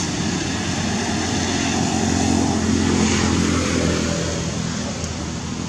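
A motor engine drones steadily, swelling to its loudest about halfway through and then fading, like a vehicle passing by.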